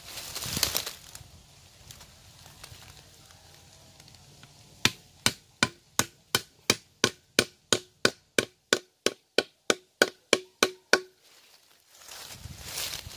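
A metal pipe hammered into a trôm (Sterculia foetida) tree trunk with the back of a machete blade: about eighteen sharp, ringing metal strikes at about three a second, starting about five seconds in. The pipe is punching a hole through the bark into the wood to tap the tree's gum.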